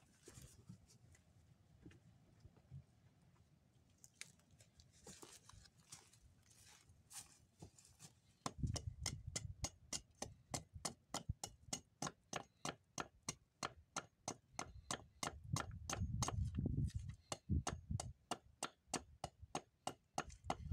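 A fast, even series of sharp taps, about four a second, starting about eight seconds in over a low rumble, after a few scattered faint ticks.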